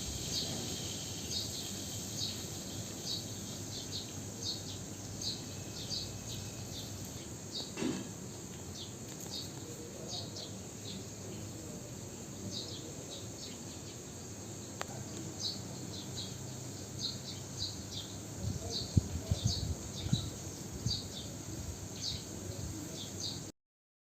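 Outdoor ambience: a steady high hiss with short high chirps repeating about twice a second, with a pause in the middle. A few low thumps come about three-quarters of the way in, and the sound cuts off just before the end.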